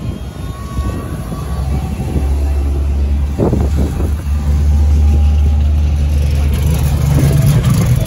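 A car engine running as a hatchback drives slowly past close by, with strong wind buffeting the microphone. The low rumble grows heavier about two seconds in.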